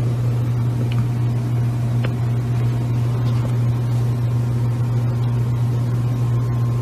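A loud, steady low hum with a fainter higher tone and a hiss over it, unchanging throughout.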